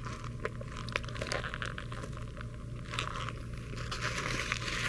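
Paper cheeseburger wrapper crinkling and rustling in the hands, with biting and chewing close to the microphone: many small irregular crackles over a low steady hum.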